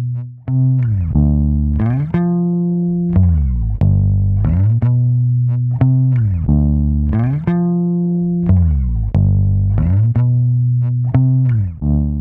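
Bass guitar playing a riff of plucked, sliding notes, some held and some cut off short, run through a compressor with its gate active.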